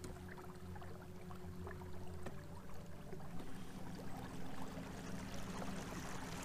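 Battery-powered electric motor driving a kayak, humming steadily, its hum changing pitch a little over two seconds in and again about a second later.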